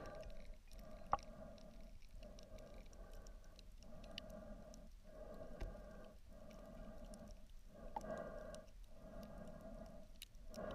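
Muffled underwater sound picked up by a camera in a waterproof housing while a spearfisher swims in the shallows, swelling and dropping about once a second, with scattered faint clicks and crackles.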